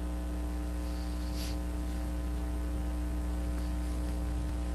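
Steady electrical mains hum with a ladder of evenly spaced overtones, unchanging throughout. A faint short hiss comes about a second and a half in.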